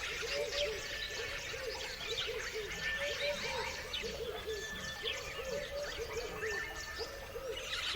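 A chorus of many birds chirping and whistling together, overlapping high chirps with a lower call repeating in quick runs underneath.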